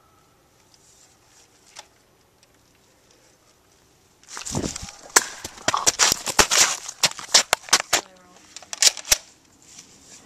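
A sudden scuffle with the handheld camera knocked about and swung toward the ground: a rush of rustling and handling noise about four seconds in, then a quick, irregular string of sharp clicks and knocks for about five seconds.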